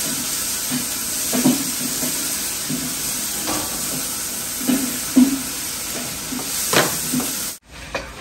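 Food frying in hot oil in a pan, a steady sizzle, with irregular knocks and scrapes of a utensil stirring it. The sound stops abruptly near the end.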